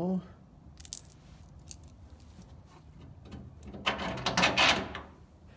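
Steel bolts and nuts clinking as they are handled: a sharp metallic clink with a brief high ring about a second in, a few light ticks, then about a second of rattling, rustling clatter near the end.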